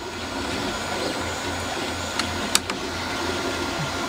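Hornby Terrier OO gauge model locomotive running along the track, its small electric motor and wheels growing louder over the first second, then running steadily. A few sharp clicks come around the middle.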